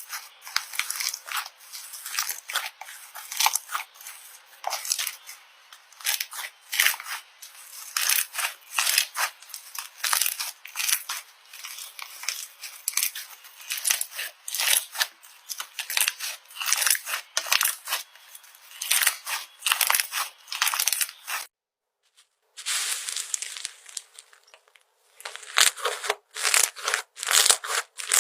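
Slime being squeezed, pressed and stretched by hand, giving a rapid string of crackly, squelching bursts several times a second. There is a one-second break about two-thirds of the way through.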